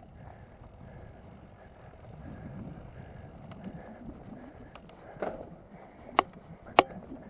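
Mountain bike rolling down a dirt forest trail: tyres rumbling steadily over the ground, with three sharp knocks from the bike rattling over bumps in the last two seconds.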